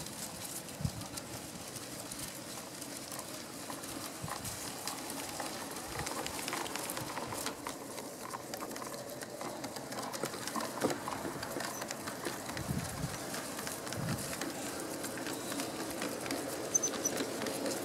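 A large-scale garden-railway train rolling past at track level, its wheels clicking and knocking over the rails in scattered ticks, a little louder from about six seconds in as the cars go by. Birds call in the background.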